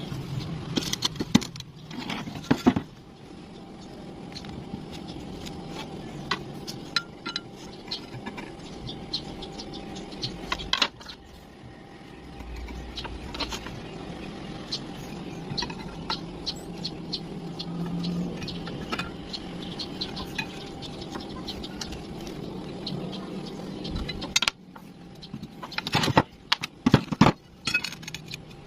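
Metal clinking and tapping, as of metal parts and tools being handled, over a steady hum, with dense runs of sharp clicks about two seconds in and again near the end.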